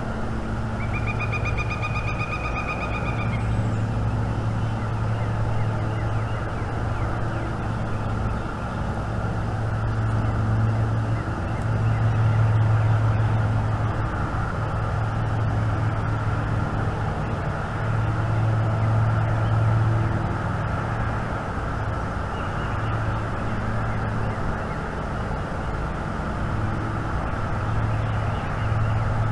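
A steady low rumble that swells and eases throughout. About a second in, one high, held tone with overtones sounds for roughly two seconds.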